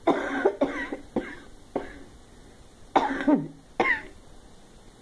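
A woman coughing in two fits: a run of sharp coughs in the first two seconds, then a couple more around three to four seconds in.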